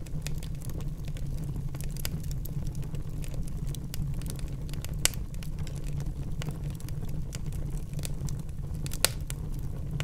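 Burning firewood crackling: a steady low rumble of flames under many small ticks, with two sharper pops about five and nine seconds in.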